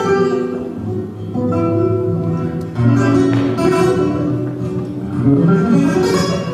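Flamenco guitar music: plucked and strummed chords with held ringing notes, and sharp strums a little after the start, about three seconds in and again about five seconds in.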